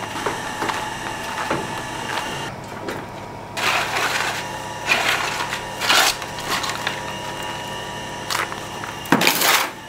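Metal shovel scraping and digging through hot ash and charcoal in a brick oven, in about four separate strokes, the loudest near the end, over a steady faint hum.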